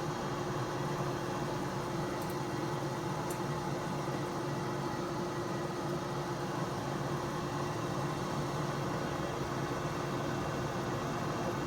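HYSapientia 24L air fryer oven running: a steady whir of air with a low, even hum.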